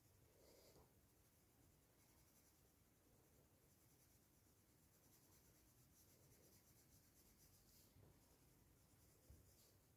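Near silence, with the faint scratch of a sharpened black coloured pencil on paper as it shades in solid black, in a few soft strokes.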